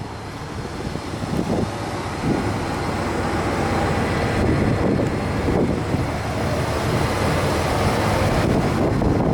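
Steady vehicle and road noise, with wind buffeting the microphone.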